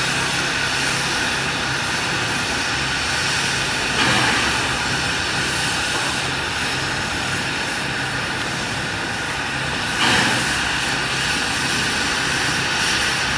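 Steam locomotive 2705 standing with a steady hiss of steam over a low hum. Two sudden louder surges of hiss come about four and ten seconds in.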